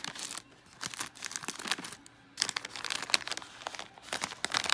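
Crinkling of a metallised plastic plantain-chip bag being handled, in crackly bursts with two short pauses.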